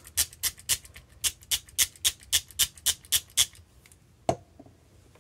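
Small water spray bottle pumped in quick short spritzes, about four a second, wetting a watercolour paint pan, followed by a single knock about four seconds in.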